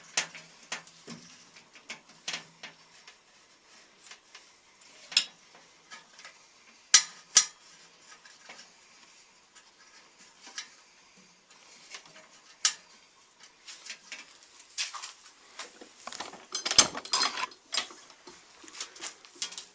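Scattered sharp clicks and light knocks of small metal parts and wire connectors being handled inside an opened microwave oven while a replacement thermostat is fitted, with a flurry of rapid clicks and rattles near the end.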